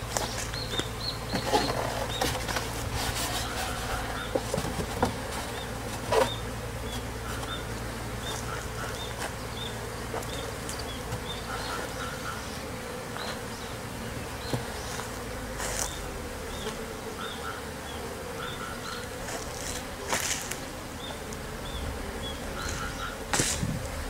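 Honeybees buzzing steadily around a stacked wooden box hive that has just been opened and extended with an extra box. A few sharp knocks of the hive boxes and roof being handled sound about 6, 16, 20 and 23 seconds in.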